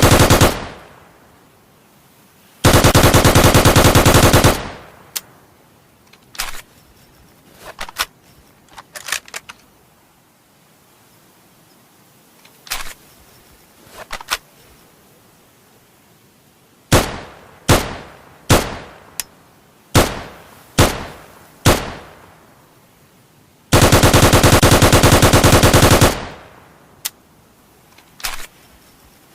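Type 100/44 submachine gun firing full-auto bursts of 8mm Nambu: a burst ends just after the start, a burst of about two seconds follows, then a run of about eight separate sharp shots, and a final burst of about two and a half seconds near the end. Fainter single clicks or shots fall in the gaps between.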